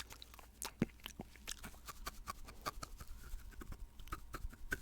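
Close-miked wet mouth sounds: irregular clicks and nibbles of teeth and lips biting on a paintbrush's bristles.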